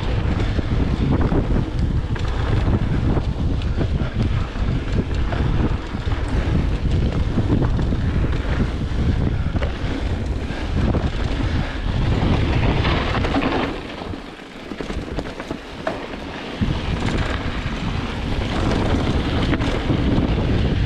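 Wind buffeting the camera microphone on a mountain bike riding fast down a dirt singletrack, mixed with the noise of the tyres on the dirt. The buffeting eases for a couple of seconds about two-thirds of the way through.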